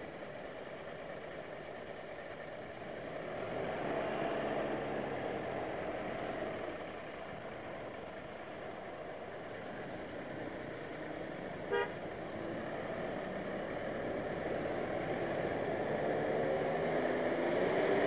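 Road traffic noise heard from a motorcycle following a bus at low speed, with engines running. A single very short horn beep comes about twelve seconds in, and an engine revs up, rising in pitch, near the end.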